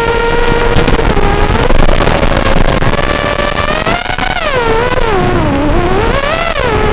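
FPV racing quadcopter's brushless motors (Racerstar BR2205 2300KV) spinning 3-blade 5-inch props, a loud whine whose pitch follows the throttle. It holds fairly steady, wavers, sinks to its lowest about five and a half seconds in, then climbs back up.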